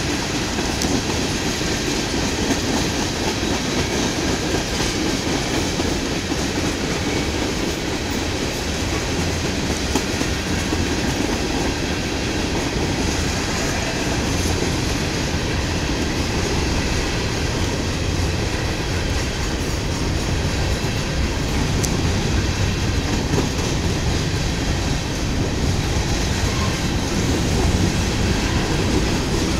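Norfolk Southern manifest freight train's tank cars and covered hopper cars rolling steadily past, steel wheels running on the rails.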